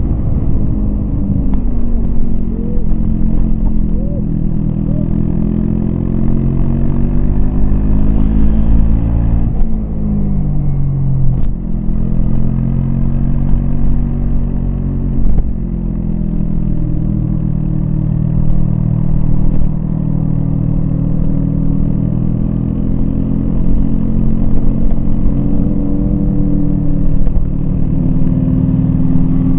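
Yamaha MT-25's 249 cc parallel-twin engine running under way, its pitch rising and falling with the throttle, with a drop and fresh climb about ten seconds in.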